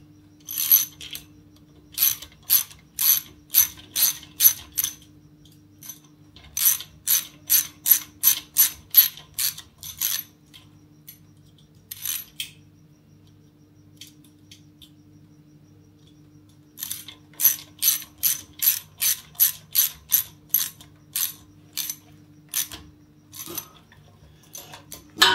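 Hand ratchet clicking in runs of quick clicks, about three a second, with pauses between runs, as the stepper motor's mounting screws and nylock nuts are tightened. A faint steady hum runs underneath.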